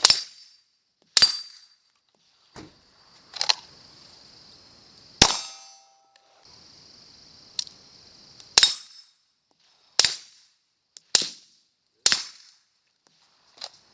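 A pistol fired shot after shot at an irregular pace, about eight loud reports one to two seconds apart plus a few softer ones, with a metallic ring after some of them from hits on a steel target. Crickets chirp steadily between the shots.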